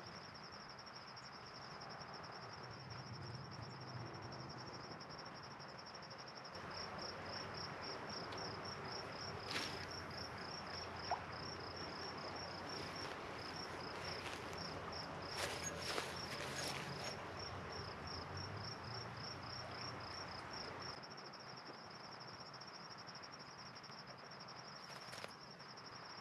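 An insect trilling at a steady high pitch, breaking into rapid pulses through the middle stretch, over a steady rush of the flowing river. A few short clicks.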